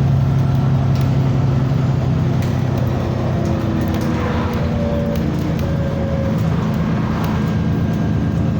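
Car engine running steadily with a loud, low drone, a few faint ticks and higher tones drifting over it.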